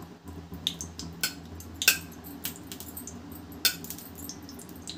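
A steel spoon clinking against a non-stick appe pan as a little oil is put into each cup: about five sharp clinks, the loudest about two seconds in.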